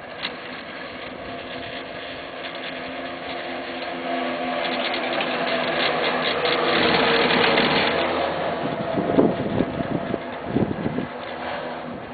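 Haul rope and rollers of a 1996 Poma Italia detachable quad chairlift as the chair passes a line tower. A rattling hum grows louder over the first eight seconds, then a string of irregular clunks comes from about nine to eleven seconds in, as the grip and rope run over the tower's sheaves.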